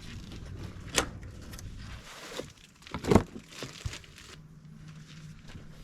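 Crinkling, rustling material being handled, with a sharp knock about a second in and a louder one about three seconds in.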